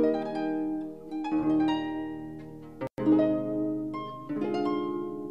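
Harp music: plucked notes in a slow, gentle melody, each one ringing out and fading over lower held notes. The track cuts out for an instant about three seconds in.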